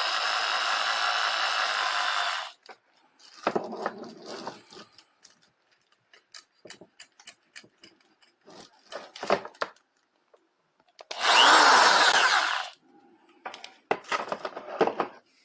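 Electric impact drill (EOS 650W) running in bursts. It runs steadily for the first two and a half seconds, then gives short bursts, a loud burst a little past halfway, and a few more bursts near the end, with scattered clicks and knocks in between.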